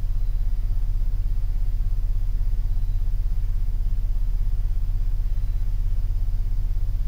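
Steady low hum with a fast, even flutter and no voice: the background noise of a voice recorder's recording, played back in the silent gap left for a spirit's answer.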